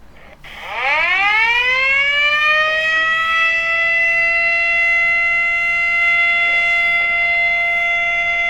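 Civil defense siren winding up about half a second in, its pitch rising for about three seconds and then holding one steady, loud tone. It is the siren sounded at 10:00 WIB on 17 August to mark Indonesia's proclamation of independence.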